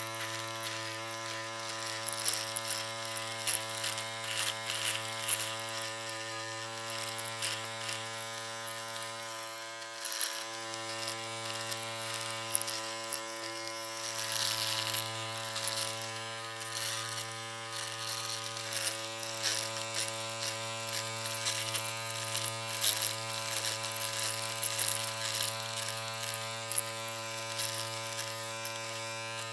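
Electric shaver running with a steady buzzing hum and a raspy high edge, dipping briefly about ten seconds in.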